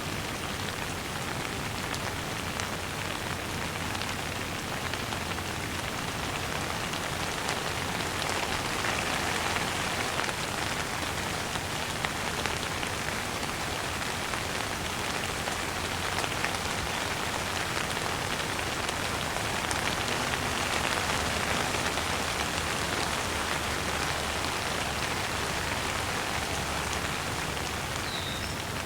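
Light rain falling steadily: an even hiss of rain with scattered individual drop ticks, swelling slightly a little past the middle.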